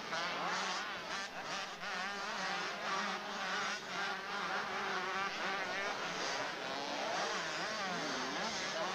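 Several 80cc two-stroke motocross bikes revving hard over the track, their engines overlapping and constantly rising and falling in pitch as the riders work the throttle through the whoops and jumps.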